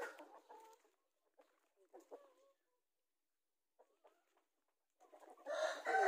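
Rhode Island Red chickens: a rooster's crow trails off at the start, a few soft clucks follow, and another long crow starts near the end.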